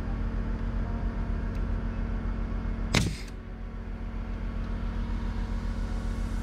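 Pneumatic coil nailer firing once into OSB roof sheathing about halfway through: a single sharp shot. A steady droning hum runs underneath.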